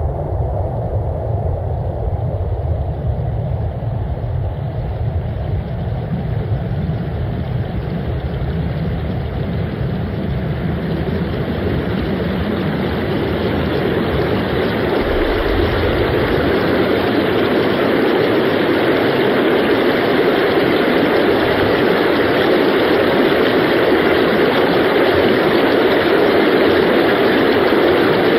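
Electroacoustic soundscape of dense, unpitched noise: a low rumble that fades out about halfway through, while a brighter rushing noise swells in its place and the whole grows slowly louder.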